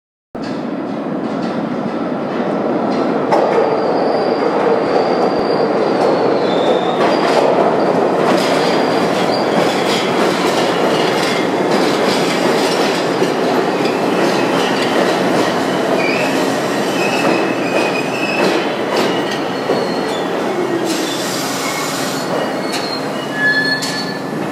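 New York City Subway R62 train entering the station and braking to a stop: a steady, loud rumble with many clicks of wheels over rail joints. High-pitched wheel and brake squeals come and go, several gliding down in pitch as the train slows near the end.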